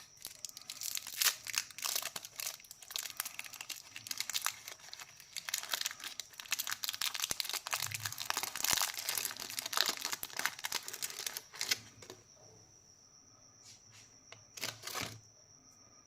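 Plastic candy wrappers crinkling and being torn open: a dense run of crackles that stops about twelve seconds in, then two short rustles near the end. A faint steady high-pitched tone sits underneath.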